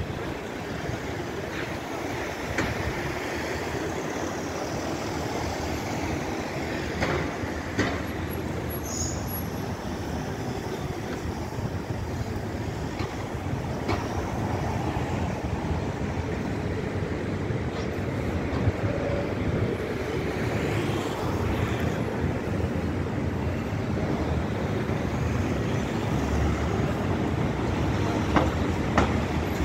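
Steady city road traffic: vans, cars and a bus driving past, with a few short clicks here and there.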